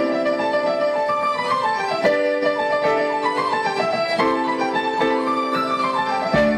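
Carod grand piano playing a romantic melody, with several quick falling runs of notes over sustained chords.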